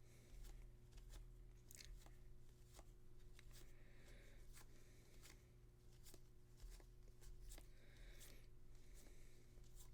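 Faint handling of baseball cards, soft clicks and brief swishes as cards are slid one behind another, over a low steady hum.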